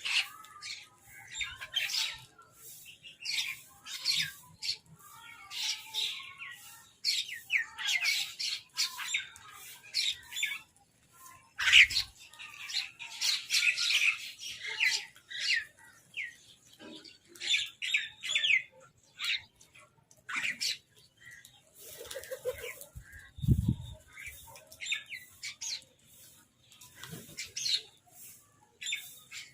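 A flock of crows calling over one another in rapid, overlapping harsh caws and squawks, mixed with higher chirping calls; a brief low rumble about three-quarters of the way in.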